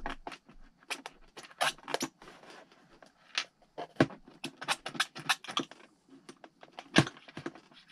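Hands working on the foam tail of an RC model airplane, fumbling to line up a small screw: irregular small clicks, taps and scratches, with a sharper click about four seconds in and again near seven seconds.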